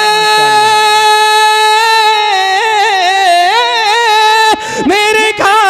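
A man's solo voice singing an Urdu manqabat, holding one long high note that turns into wavering melismatic ornaments, breaking off briefly near the end before a new phrase starts.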